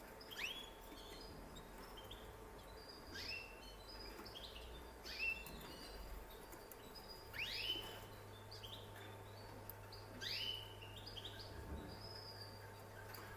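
Canary giving short chirping calls, one about every two to three seconds, each a quick upward-sweeping note, over a faint steady hum.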